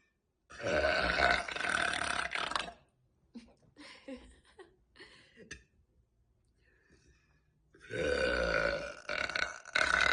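A woman's long, loud burps: one starts about half a second in and lasts a little over two seconds, and a second starts near the end. Between them come a few short hiccups.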